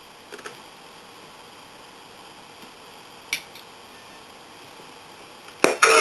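Low hiss broken by a few faint clicks, then near the end a Tamiya MFC-02 sound unit's simulated engine start plays through the crawler's speaker: a sharp onset followed by loud running engine sound.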